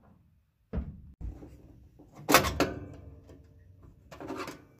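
A few knocks and clanks of a screwdriver and hands against a gas furnace's sheet-metal cabinet; the loudest is a sharp metallic clank with a short ring about two seconds in.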